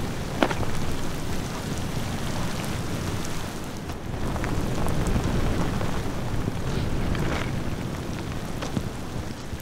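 Gusting wind and rain, a heavy surging rumble that rises and falls, with a few sharp snaps of an umbrella canopy being blown about, the loudest about half a second in.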